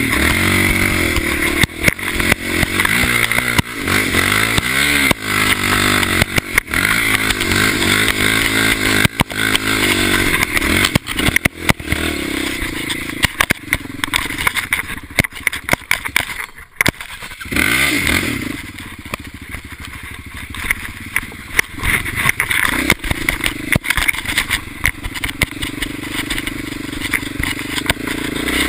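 Off-road vehicle engine revving up and down repeatedly as it is ridden over sandy quarry tracks, with clatter from the machine, and a brief drop a little past halfway.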